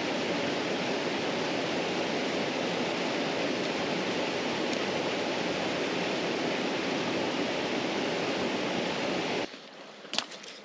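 Steady rushing of a small river waterfall and rapids that cuts off suddenly about nine and a half seconds in. A single sharp click follows in the quieter stretch near the end.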